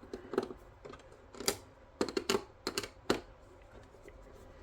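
Irregular sharp clicks and taps from a screwdriver and the TV's plastic and metal parts being handled during disassembly, with the loudest about a second and a half in and around three seconds in.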